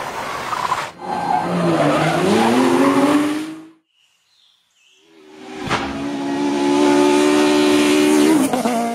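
Rally car engines at high revs. One engine's pitch dips and climbs again, then cuts off. After a short near-silence a second car comes in holding steady high revs, which drop near the end.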